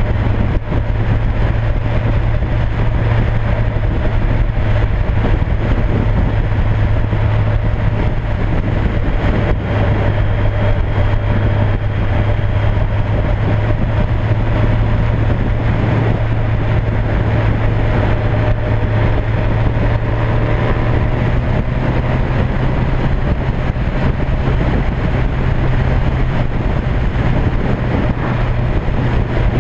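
Motorcycle engines at a steady cruise with wind rush, heard from a BMW K100RS following a BMW F800ST fitted with a loud carbon exhaust can. The engine note steps up a little about three-quarters of the way through.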